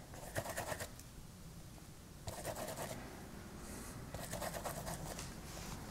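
Paintbrush scrubbing thick paint, three short scratchy bursts of strokes about two seconds apart, each under a second long and made of several quick rubs.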